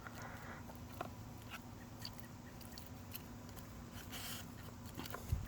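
Faint clicks and a short scrape about four seconds in, as filler with added hardener is stirred and handled in its container, over a low steady hum.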